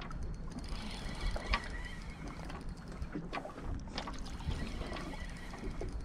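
Small water sounds lapping against the hull of a small boat, with a low wind rumble on the microphone and scattered light clicks and taps.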